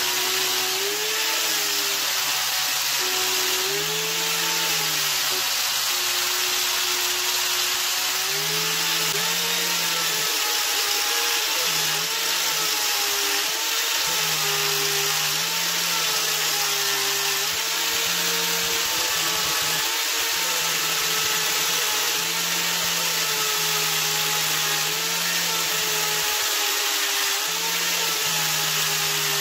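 Angle grinder with a foam-backed sanding disc running against a steel blade, a steady motor whine over the hiss of abrasive on metal. The whine dips and recovers repeatedly as the disc is pressed on and eased off.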